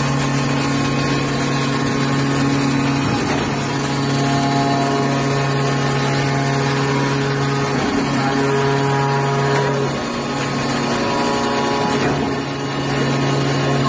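Horizontal aluminum baler's hydraulic power unit running with a steady low hum, its pattern of tones shifting a few times, with brief dips about eight and ten seconds in.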